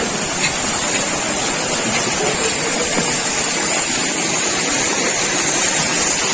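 Steady, loud rush of water noise, even and unbroken.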